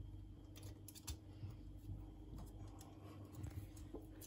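Faint, irregular light clicks and taps from handling a plastic wall socket, fitting the neutral wire into its screw terminal.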